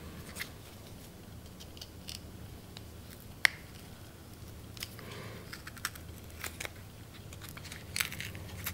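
Small clicks and scrapes of a pick prying a torn rubber dust boot off the end of a rusted drum brake wheel cylinder, with one sharper click a few seconds in and a cluster of clicks near the end, over a faint steady hum.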